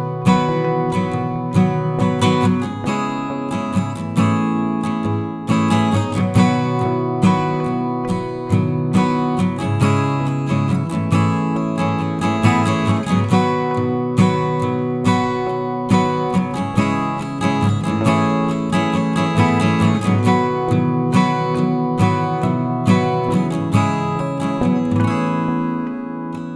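Background music without vocals: an acoustic guitar strummed in a steady rhythm.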